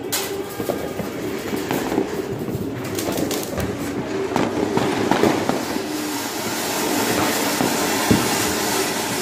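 Ground fountain firework (flower pot) spraying sparks with a loud hiss and crackle, building up from about four seconds in, with scattered sharp pops of other firecrackers.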